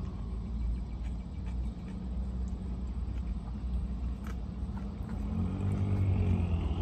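Steady low rumble of a car idling, heard from inside the cabin, swelling a little near the end, with a few light clicks over it.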